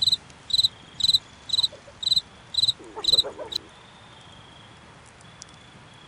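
Cricket chirping in an even rhythm of about two high chirps a second, which stops abruptly about three and a half seconds in.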